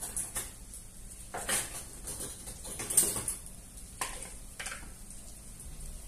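Kitchenware being handled: a series of short clinks and knocks of dishes and utensils, the sharpest about three seconds in.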